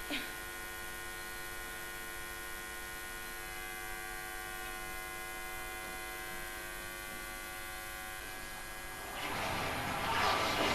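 Steady electrical mains hum with many even tones, a recording's background hum. About nine seconds in, a louder noisy swell rises over it as the next music cue begins.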